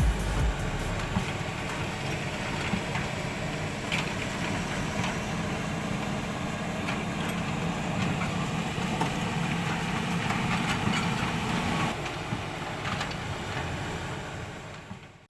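WL 16800 RC excavator running: a steady, engine-like mechanical hum with scattered small clicks. It fades away over the last few seconds.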